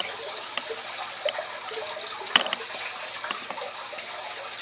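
Aquarium filter water running: a steady trickle with many small bubbly pops and drips, one a little sharper about two and a half seconds in.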